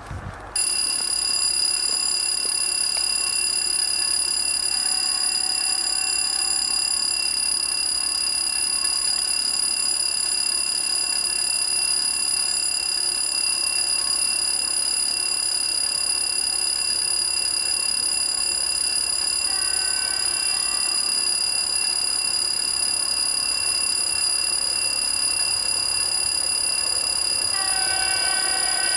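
Steel rails ringing ahead of an approaching train: a steady, high-pitched whine of several tones that starts abruptly about half a second in and holds without pulsing.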